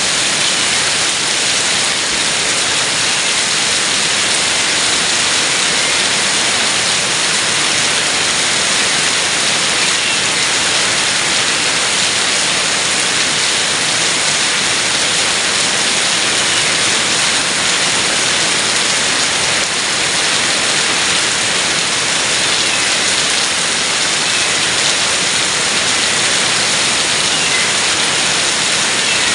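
Heavy rain pouring steadily, a dense even hiss of rain on surfaces with faint individual drop ticks.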